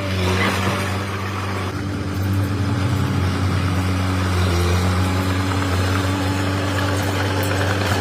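Komatsu D21P mini bulldozer's diesel engine running steadily, its level rising slightly about two seconds in.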